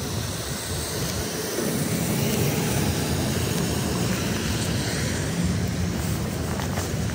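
Steady low rumble of city traffic on a rain-wet street.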